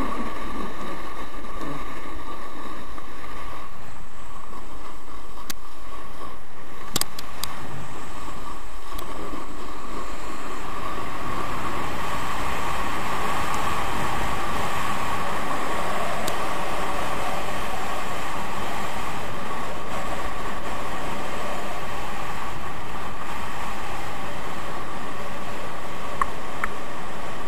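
Steady rushing noise of a downhill ski run: skis sliding and scraping over groomed snow, with air rushing past the microphone. A few brief clicks about seven seconds in.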